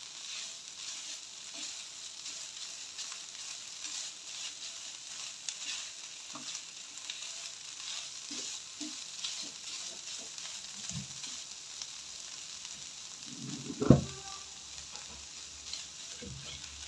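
Chicken frying with onions and spices in hot oil in a pan: a steady crackling sizzle as it is stirred, with light scrapes and knocks of the spoon against the pan and one sharp knock about 14 seconds in.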